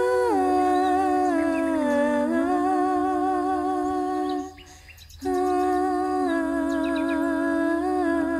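Several voices humming wordless held notes together in harmony, stepping up and down in pitch, with a short break about halfway through before the humming resumes.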